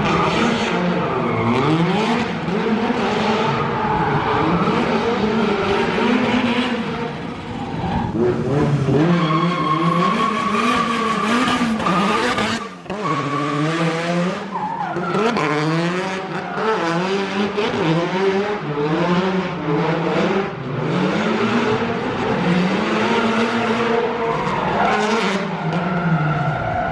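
Drift cars on track: engines revving hard, the pitch climbing and dropping again and again, with tyres skidding and squealing.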